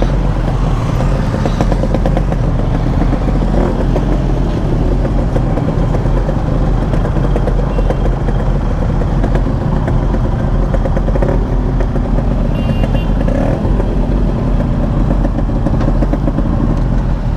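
Several motorcycle engines idling and running at low revs close by, a steady engine sound with no sharp breaks.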